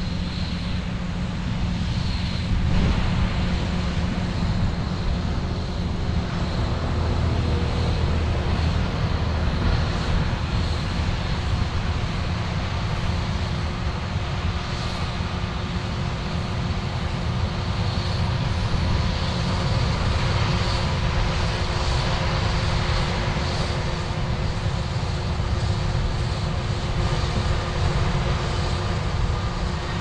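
John Deere S670 combine running steadily: a constant deep engine rumble with a faint steady whine above it.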